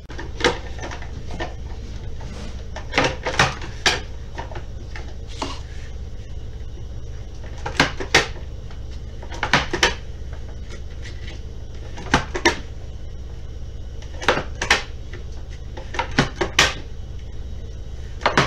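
Plastic hand vegetable slicer clacking as boiled eggs are pushed across its blades with the plastic food holder to dice them: sharp clacks in clusters every few seconds. A steady low hum runs underneath.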